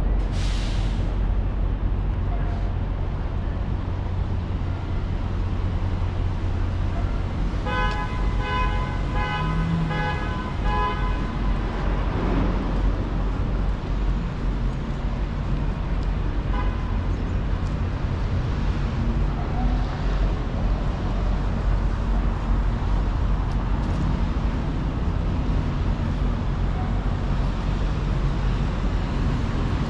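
Downtown street traffic and city hum, a steady low rumble. About eight seconds in, a vehicle horn sounds for about four seconds, broken into short toots.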